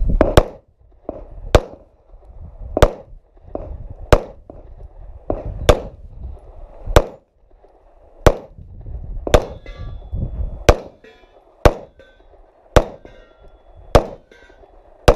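Pistol shots fired at a steady pace of about one a second, about fourteen in all, at small steel targets. Faint metallic ringing follows some shots where the steel plates are hit.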